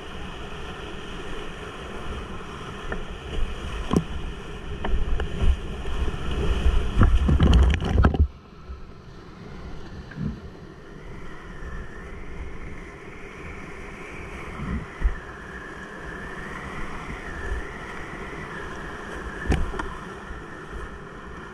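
A kayak running a whitewater rapid: rushing water with splashes and knocks against the hull, the heaviest splashing about four to eight seconds in, after which the sound drops suddenly to a duller, steady rush with a few later knocks.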